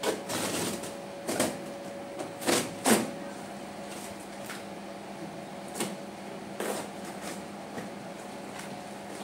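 A blade slitting the packing tape along the seam of a large cardboard box, heard as short scraping strokes: several close together in the first three seconds and a few more later, under a faint steady hum.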